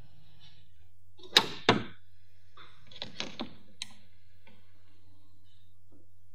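Two sharp clicks about a second and a half in, then a few lighter clicks and a tick around three seconds in, as a rubber PCV hose is pushed onto a plastic 90-degree fitting and its hose clamp is worked with pliers. A low steady hum lies underneath.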